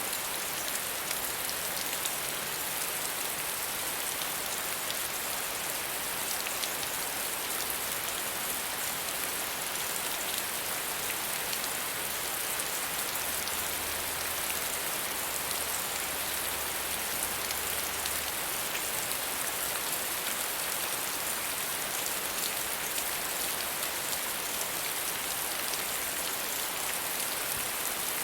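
Steady soft rain falling, an even hiss with scattered individual drops ticking on a surface.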